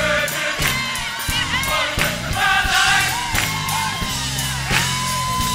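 Gospel choir singing with band accompaniment: steady bass notes and drum hits underneath the voices.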